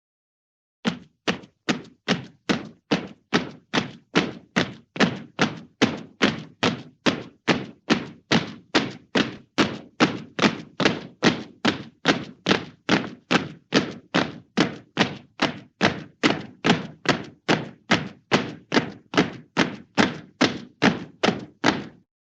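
A steady, evenly spaced series of sharp thunks, about two a second, each dying away quickly; it starts just under a second in and stops just before the end.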